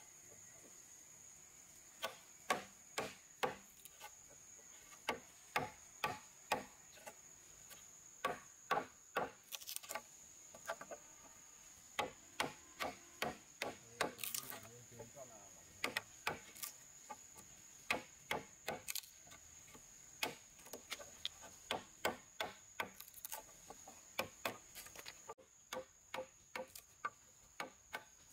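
Steel woodworking chisel being driven into a wooden beam by repeated blows, chopping out the waste between saw kerfs: sharp wooden knocks, roughly one or two a second and unevenly spaced. A steady high insect drone runs underneath.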